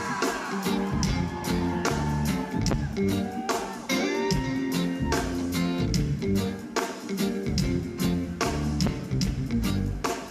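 Band music with a steady beat: plucked guitar lines with bent notes over bass and drums.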